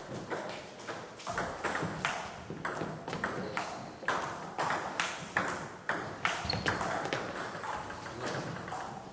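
Table tennis ball clicking off the bats and the table in a rally: a quick, irregular string of sharp ticks, echoing slightly in a sports hall.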